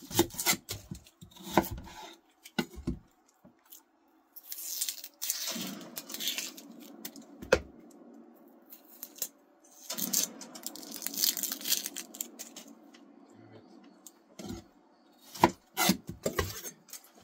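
A kitchen knife cutting into an onion and knocking on a cutting board, with scattered sharp clicks. In the middle, two longer stretches of tearing and rustling as the dry onion skin is peeled off by hand. More knife taps and clicks come near the end.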